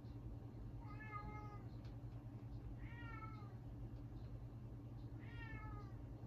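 A cat meowing three times, about two seconds apart, each meow sliding down in pitch.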